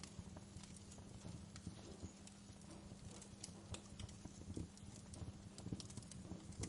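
Wood fire in a fireplace crackling: irregular sharp pops and snaps, several a second, over a low steady rumble.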